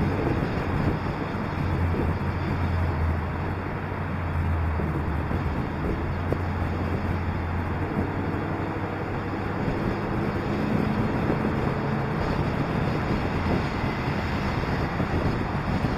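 Car driving at steady speed on a road: a low engine hum with tyre and road noise and wind rushing over a roof-mounted camera. The engine note is strongest in the first half and shifts to a higher, weaker hum about halfway through.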